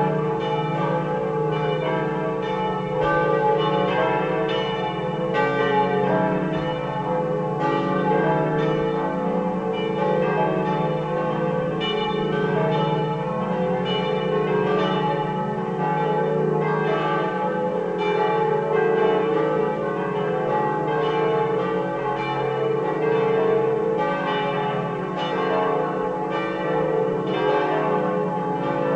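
Swinging church bells in the tower, cast by the Pruneri foundry of Grosio, ringing together. Their strokes come thick and overlapping, with each bell's tone ringing on under the next strikes, steady in loudness.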